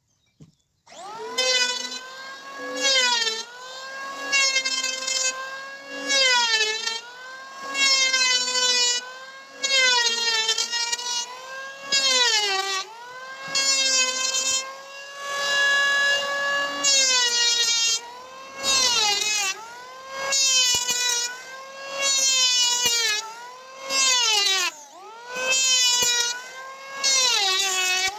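An electric hand planer starts up about a second in, then runs in repeated loud cutting bursts, about one every one and a half to two seconds, as it shaves a timber beam. Its motor whine sags in pitch and recovers again and again as the blade bites into the wood.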